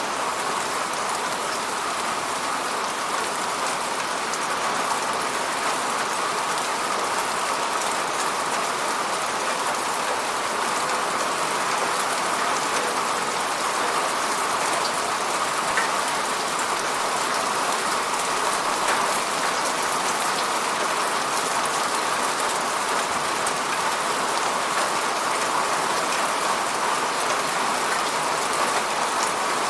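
Steady rain falling, a dense even hiss of drops with small scattered ticks of individual drops hitting a surface.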